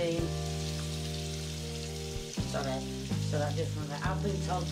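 Bacon sizzling faintly in a frying pan, with steady background music of long held notes over it. A woman's voice speaks briefly in the second half.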